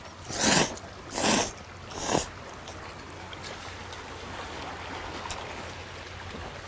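A person slurping ramen noodles with chopsticks from a bowl: three quick loud slurps in the first two seconds, the last one shorter. After them come quiet chewing and a steady hiss of sea and wind in the background.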